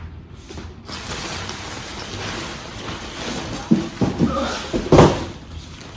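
Tent fabric rustling as a dome tent is spread out flat. Louder swishes and a few knocks come a little past halfway through.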